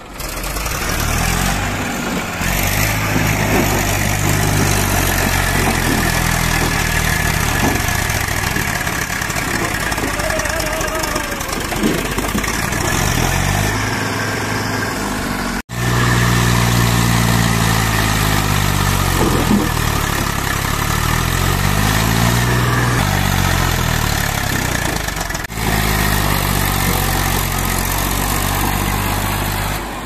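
Diesel engines of a tractor and a backhoe loader running close by, engine speed rising and falling again and again. The sound breaks off for an instant twice, about halfway and about two thirds in.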